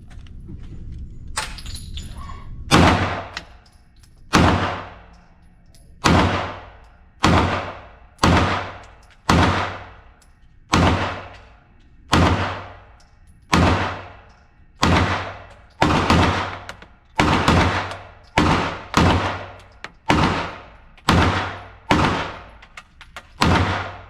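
Glock G45 9mm pistol firing its last magazine in slow, steady fire: about fifteen shots roughly a second apart, each with a long echoing tail. A few light clicks come before the first shot.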